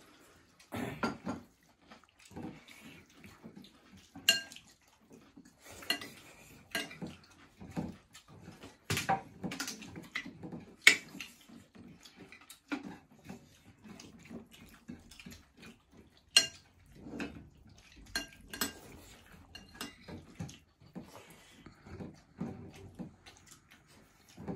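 Scattered clinks and scrapes of metal plates and a spoon as several people eat rice and curry, a few of the clinks sharp and ringing.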